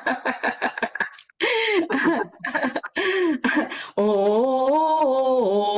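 A woman vocalising in a breathing and sound-therapy exercise: a run of quick short voiced pulses, then a held sung vowel that steps up and down in pitch over the last couple of seconds.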